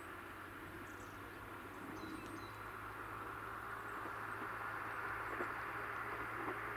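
Tango Explorer diesel train approaching in the distance: a low, steady running rumble that slowly grows louder, with faint bird chirps over it.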